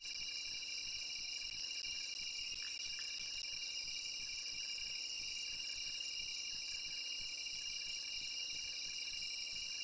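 Steady chorus of night insects, crickets, trilling at several high pitches at once and never letting up. The volcanic burst adds no audible rumble or blast.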